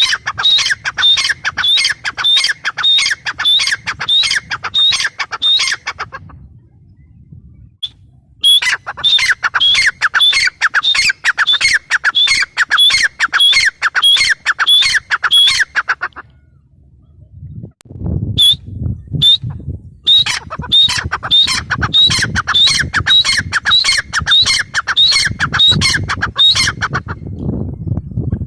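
Grey francolin (teetar) calling: loud, rapidly repeated notes, about three a second, in three long bouts with short pauses between them. A low rumble runs under the last bout.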